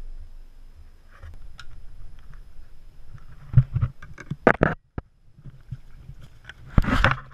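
Scattered clicks and knocks of a screwdriver and gloved hands working on a coolant hose clamp and rubber hoses in an engine bay, with a few sharper knocks past the middle and a louder clatter near the end.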